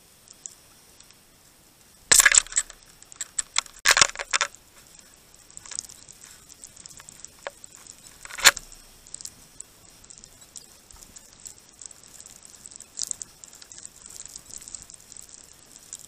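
Great tits pecking and hopping on the frozen feeder close to the microphone: sharp clinking taps and scratches. They come in two loud clusters about two and four seconds in and a single loud tap a little past eight seconds, with fainter pecks and scrabbling in between.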